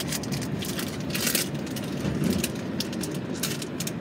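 Foil Pokémon card booster pack wrapper being crinkled and torn open, with irregular sharp crackles, the densest about a second in.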